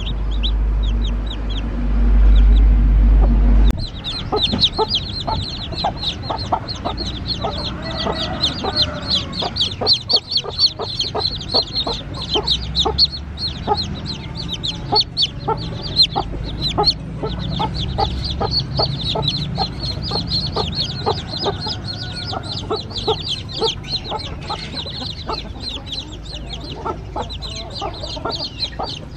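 Newly hatched chicken chicks peeping: many rapid, high, falling peeps that run on without pause. A loud low rumble covers the first few seconds.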